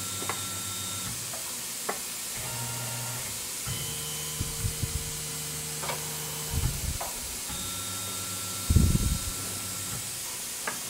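Tormach PCNC 1100 CNC mill tapping holes in steel with a spiral-flute tap: the spindle motor hums in short spells that start, stop and change pitch hole by hole, over a steady hiss with faint whines and scattered clicks. A short, louder rough burst comes near the end.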